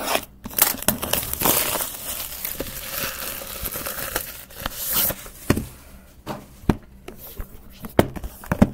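Crinkling and tearing of packaging as a sealed box of trading cards is handled and opened, for about the first five seconds, followed by a handful of sharp clicks and taps.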